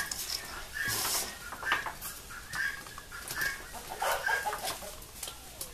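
Chickens clucking, short calls about once a second, over the rustle of a hand working grated cheese and polvilho (tapioca starch) in a metal bowl.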